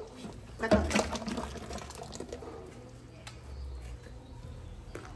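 Thick mole sauce being scooped from a clay cazuela with a small metal pot and poured into a large aluminum stockpot. There is a loud pour about a second in, then quieter scooping with a few light knocks.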